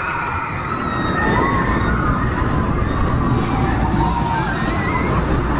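Riders on a Gyro Drop freefall tower screaming in the distance, several high, wavering cries overlapping and sliding up and down in pitch, over a steady rush of wind and outdoor noise.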